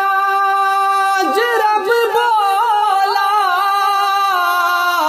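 A man singing a naat, holding one long high note. In the middle his voice breaks into a wavering, ornamented run, then settles back onto a steady held note.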